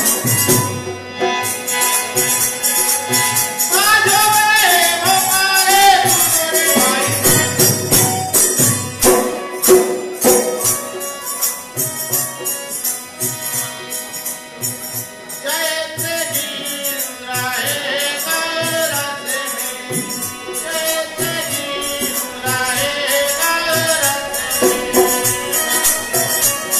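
Live Hindustani bhajan (faag) music: a man sings a devotional song to harmonium accompaniment, over a hand drum and metal hand percussion jingling in a steady, quick beat. The sung lines come and go, while the jingling percussion and drum keep going.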